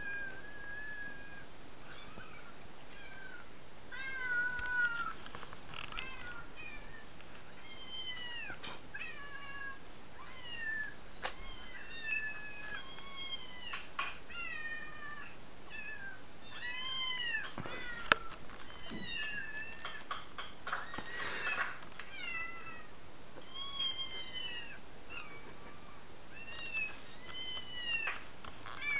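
Many cats and kittens meowing one after another, played through a laptop's speakers: short rising-and-falling meows come about one or two a second. A single sharp click sounds about two-thirds of the way through.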